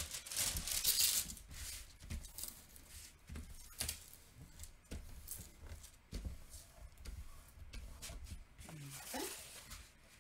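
The clear plastic cover on a diamond painting canvas crinkles and rustles as hands smooth it flat and turn it on a table, with a few light knocks and taps in between. The crinkling is heaviest in the first second or two.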